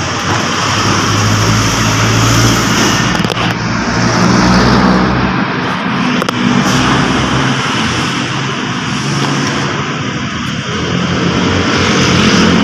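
A motor vehicle engine running steadily: a low hum under a broad noise that swells and eases a little.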